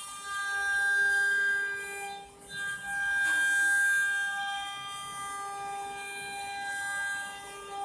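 CNC router spindle whining steadily while it cuts, its loudness swelling and dipping as the cut goes, with a short dip about two and a half seconds in.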